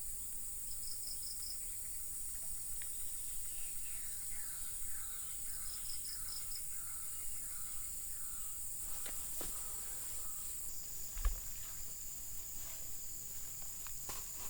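Steady high-pitched insect chorus with a short rapid trill twice, a run of falling calls through the middle, and a few knocks and one low thump near the end.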